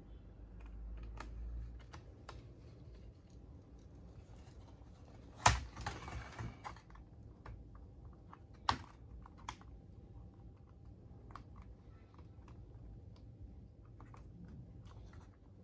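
Faint scattered clicks and taps of laptop plastic and connector latches being handled during reassembly. There is a sharper knock about five and a half seconds in, followed by a brief rustle, and another sharp click a few seconds later.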